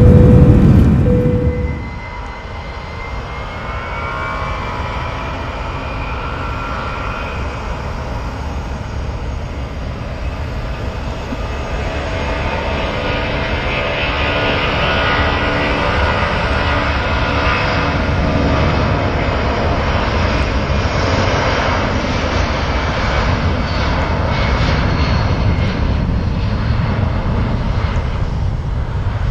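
A brief loud intro sound at the start, then a Delta Boeing 757-232's Pratt & Whitney turbofans spooling up to takeoff power. A rising whine rides over a jet roar that grows steadily louder through the second half.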